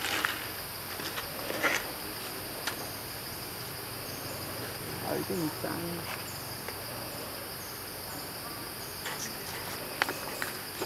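Steady, high-pitched drone of an insect chorus, with a few faint clicks and rustles over it.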